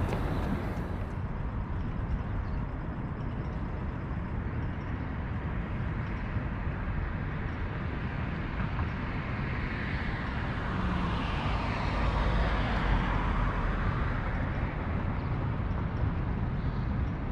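Steady city traffic noise with a low rumble, and a vehicle passing that swells and fades away about ten to fourteen seconds in.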